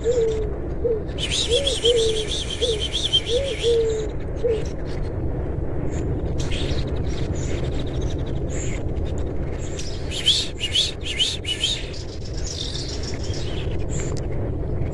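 Wild birds calling: a run of short, low, rise-and-fall hooting notes about twice a second for the first four and a half seconds, with bursts of high, rapid chirping twitter about one to four seconds in and again around ten to twelve seconds in. Under them runs steady low background noise.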